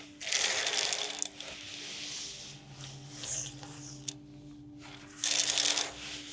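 Small letter tiles clattering and sliding over a table as they are mixed by hand, in a louder spell of shuffling near the start and another near the end, with quieter rattling between. A steady low hum runs underneath.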